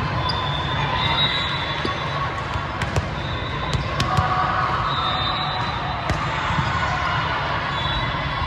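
Court game in a gym: a ball hitting or bouncing a few times, sharp high squeaks of shoes on the floor, and steady crowd chatter.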